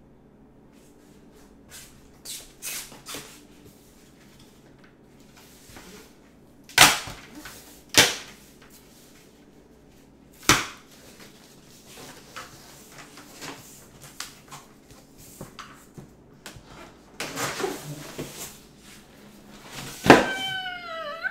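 A car seat's cardboard box and packing being handled as it is unboxed: three sharp knocks and thumps in the middle, with lighter clicks and rustling around them. Near the end comes a baby's short cry or babble.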